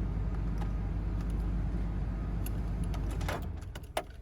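Ford 4.6-litre V8 engine idling smoothly with no audible tick while engine-flush oil circulates, then shut off a little over three seconds in, followed by a couple of sharp clicks.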